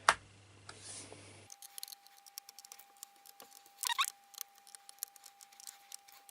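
Small clicks, ticks and scratches of a precision screwdriver turning and seating the tiny screws of a MacBook Pro's aluminium bottom case, with a sharper scrape about four seconds in.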